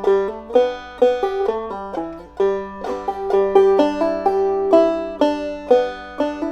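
Five-string banjo played clawhammer style: an old-time tune picked as a steady, even run of bright plucked notes.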